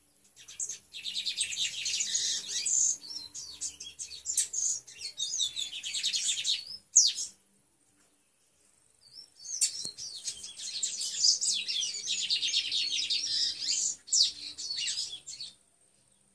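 Lined seedeater (bigodinho) singing its treme-terra song: two long bouts of rapid, high trilled phrases, each about six seconds, separated by a pause of about two seconds, with a few sharp single notes in between.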